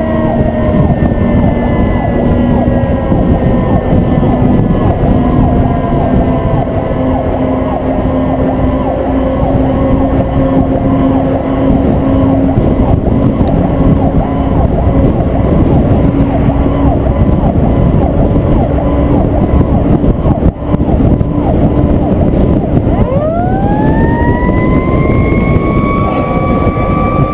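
Fire truck siren heard from the outside of the moving truck over heavy wind rush: its pitch sinks slowly through the first part, then about 23 seconds in it sweeps sharply up and holds high. A steady drone from the truck runs beneath.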